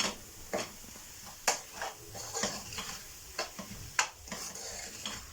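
A spoon stirring curry masala in a hot pan, with sizzling throughout and the spoon knocking sharply against the pan about eight times.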